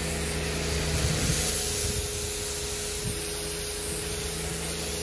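Karcher K1700 Cube electric pressure washer running: a steady motor hum under the hiss of the spray jet hitting concrete.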